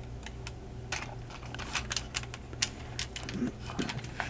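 Light, irregular clicks and taps of hard plastic as a toy pickup truck is handled and its small movable roll-bar lights are bent over.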